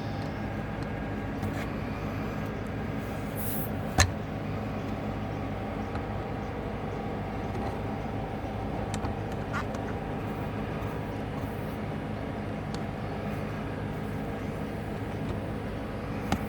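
A steady motor hum runs throughout. There is one sharp, loud click about four seconds in and a smaller click near the end.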